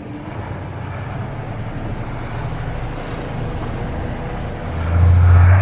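Mercedes-Benz Unimog U2450 6x6 diesel engine running as the truck drives, a steady low rumble that rises sharply in loudness about five seconds in as the engine takes more throttle.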